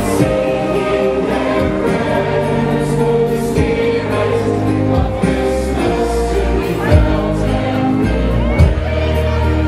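Christmas carol music with a choir singing over a steady bass accompaniment, with two brief thumps in the second half.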